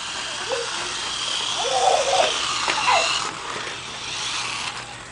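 Toy remote-control car's small electric motor whining, the pitch creeping up before it cuts off about three seconds in, with a few short sounds in the middle.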